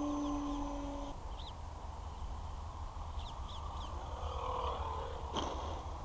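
An electric RC trainer plane's motor humming at a steady pitch, cutting off about a second in. After it come faint bird chirps over a low rumble, and one sharp click near the end.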